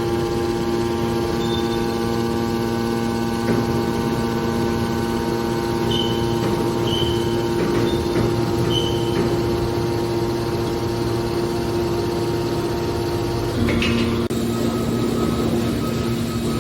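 Hydraulic power unit of a scrap metal baler press running with a steady hum. A few short faint squeaks come in the middle, and the pitch of the hum changes with a click about fourteen seconds in.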